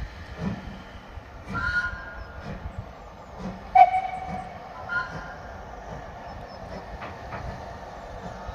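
Steam train running past on a heritage railway, with short whistle sounds: a brief one about two seconds in and a louder, lower one about four seconds in, over the steady running noise of the train.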